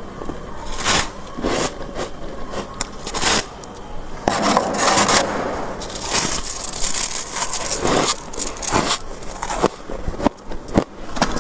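A metal spoon scraping soft built-up freezer frost in several separate strokes over the first few seconds, followed by denser crunching and crackling as handfuls of the frost are gathered and bitten.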